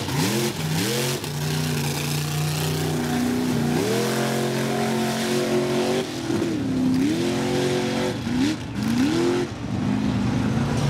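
Mud-racing truck engine revving hard through a mud pit, its pitch rising and falling in repeated surges, with an abrupt break about six seconds in and more quick rev-ups after it.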